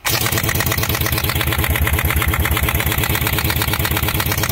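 A 1-inch impact wrench, reduced down to a 3/8 socket, hammering steadily and rapidly on a very tight cylinder head bolt. It starts abruptly and is very loud.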